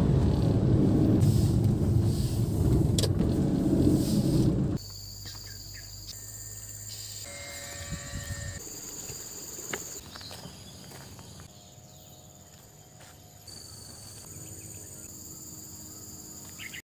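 A car being driven, its road and engine noise heard from inside the cabin, for about five seconds; it cuts off abruptly. Then quieter outdoor sound with steady high insect buzzing and chirping, shifting at several edits.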